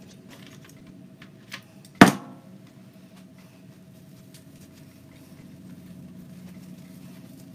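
A single sharp knock of a hard object on the worktable about two seconds in, with a few lighter taps from handling ribbon and tools, over a faint steady hum.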